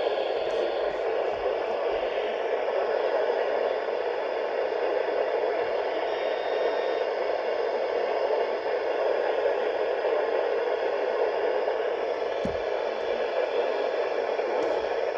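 Radio receiver hissing with steady static after an alert broadcast ends, with a brief low knock near the end.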